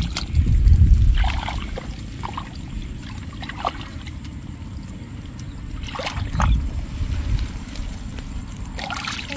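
Rubber-gloved hands groping through a shallow muddy puddle for fish, sloshing and squelching in the mud and water, with a few short splashes; it is loudest in the first second and swells again around six seconds in.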